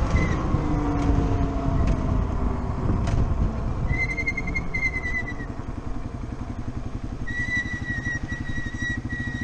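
Small single-cylinder four-stroke motorcycle engine, heard from the rider's helmet. Its pitch falls over the first two seconds as the throttle closes, then it runs at low revs with a steady putt as the bike rolls up to a stop sign. A high squeal sounds twice, briefly about four seconds in and again from about seven seconds on.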